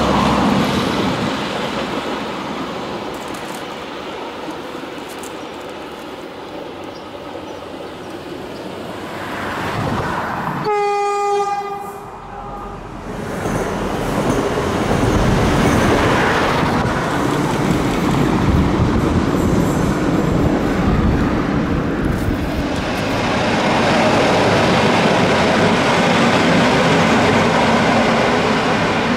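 Italian diesel railcars running past on the rails: a steady engine drone with wheel noise, swelling as each train passes. About a third of the way through, a train horn sounds one single-pitched blast that trails off after about two seconds.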